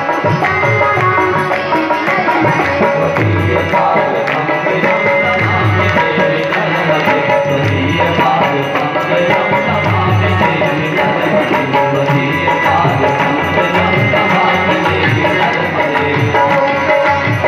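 Live Indian devotional music with tabla drumming a steady beat under a melody.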